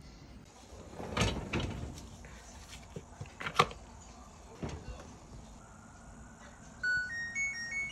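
Several knocks and clatters, the sharpest a clack about three and a half seconds in. Near the end a short electronic chime melody plays, a run of clean beeping tones stepping up and down.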